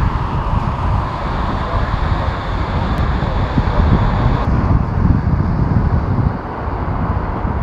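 Strong gusty wind buffeting the microphone with a low, fluttering rumble, over the distant roar of jet airliner engines. The higher hiss drops away abruptly about four and a half seconds in.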